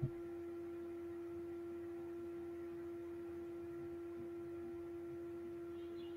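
Steady electrical hum at one pitch with fainter higher tones, and a single click right at the start as the mouse clicks a button.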